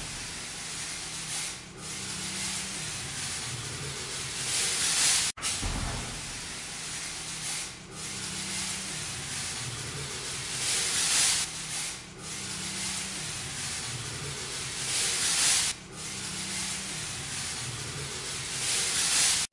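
Handheld electric fogging machine running and spraying disinfectant mist: a steady rushing hiss over a low motor hum, swelling louder every few seconds. About five seconds in the sound drops out sharply for an instant.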